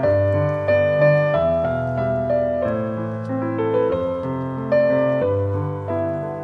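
Background piano music: a slow melody of single notes over held chords, each note struck and then fading.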